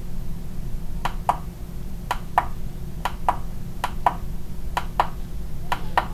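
Sound effects from a TRS-80 Color Computer game: short clicky blips, often in pairs, about one to two a second, over a steady low electrical hum.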